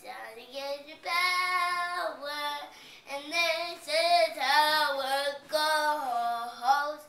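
A young girl singing a children's song unaccompanied, in short phrases with long held notes that bend in pitch.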